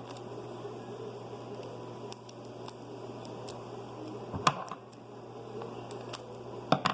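Hands handling a homemade paper squishy and its plastic-bag stuffing: faint crinkling and light clicks over a steady low hum, with two louder sharp knocks, about four and a half seconds in and near the end.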